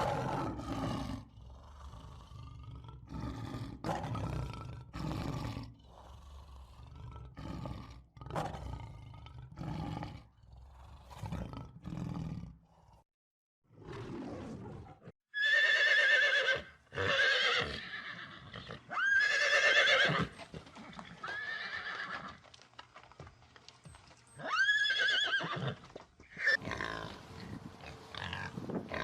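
Animal calls in two runs. First, short rough low calls repeat about once a second. Then, after a brief pause about halfway through, louder high-pitched calls with rising, wavering pitch follow one after another.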